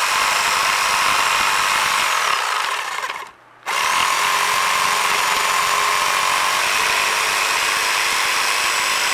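Corded electric jigsaw cutting through a wooden board, running steadily, stopping briefly a little over three seconds in, then starting again and cutting on.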